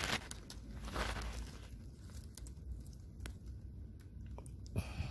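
Faint rustling and a few small clicks of a gloved hand moving in wet mud at the mouth of an eel burrow, over a low steady rumble.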